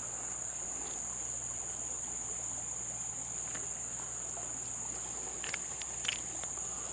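Summer insect chorus: a steady, unbroken high-pitched buzz, with a few faint ticks near the end.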